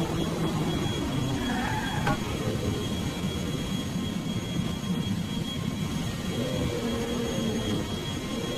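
Steady whirring engine noise, with a drone that wavers slowly in pitch.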